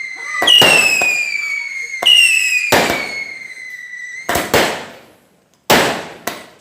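Fireworks going off: two sharp cracks, each followed by a high whistle falling in pitch for over a second, then a string of sharp bangs in the second half.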